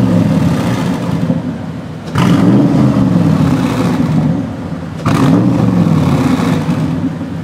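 Mercedes G55 Hamann's V8 running through its six-pipe exhaust, blipped twice, about two seconds in and again about five seconds in: each rev jumps up suddenly and then falls back toward idle.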